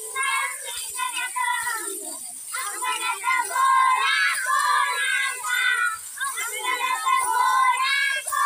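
A group of young children singing a Marathi action song together, their high voices in unison phrase by phrase.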